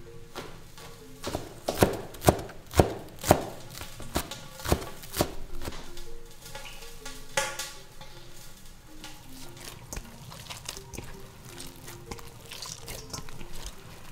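Cleaver chopping green onions on a wooden cutting board: a run of sharp chops about two a second, loudest a couple of seconds in, then lighter ones that fade out. Soft background music with a simple melody plays throughout.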